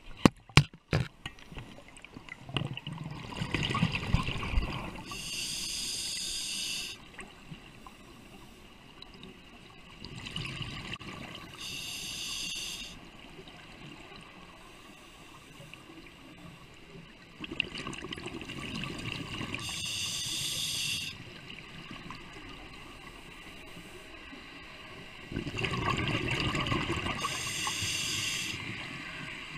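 A scuba diver's regulator breathing underwater: four breaths about seven seconds apart, each a gurgling rush of exhaled bubbles alongside the regulator's hiss. A few sharp clicks come just after the start.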